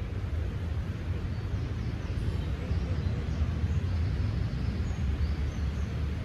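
Outdoor park ambience: a steady low rumble, with faint high bird chirps scattered through the middle.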